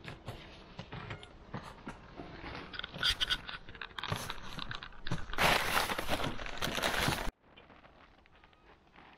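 Hive tool scraping and cracking wooden frames loose inside a beehive, with the cover over the frames crinkling as it is peeled back. The crackling is loudest for about two seconds and stops suddenly after about seven seconds.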